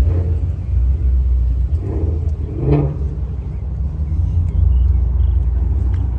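Car engine running steadily with a deep low rumble, with faint voices in the background.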